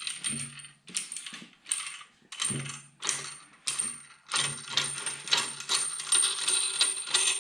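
Wrench turning the nut on a homemade threaded-rod cam bearing puller, drawing an old cam bearing out of a Chevy 454 block. Short metallic clicking strokes come about once every half second to second, then run almost without a break over the last three seconds.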